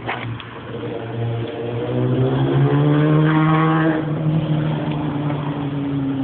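Yamaha R1 sport bike's inline-four engine running near idle, then revved up gently, held for about a second, and let fall slowly back toward idle.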